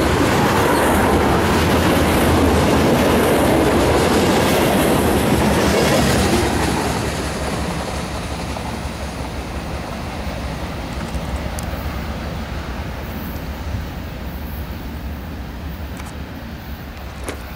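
Freight train of covered hopper cars rolling past close by, steel wheels on the rails. Loud until about six and a half seconds in, when the last car goes by, then fading steadily as the train moves away.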